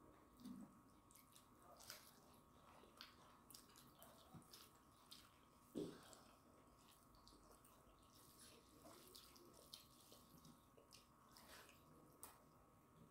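Faint, scattered wet clicks and smacks of eating: rice and chicken curry chewed and handled by hand, with one louder smack about six seconds in.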